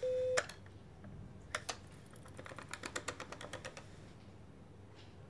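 Corded desk telephone being dialled: a steady dial tone cut off by a sharp click, then the plastic clicks of its push buttons, two at first and then a quick run of about a dozen key presses.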